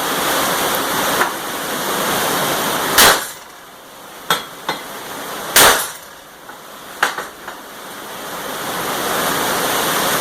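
Metalwork on a steel tire-changer frame: a steady rushing noise runs, drops away about three seconds in, and returns near the end. In the quieter middle come about five sharp metal knocks.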